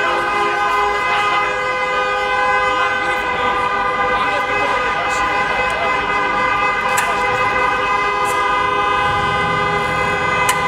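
A steady, unchanging chord of held tones over the chatter of a crowd in a large hall, with a few sharp knocks about five, seven and ten seconds in.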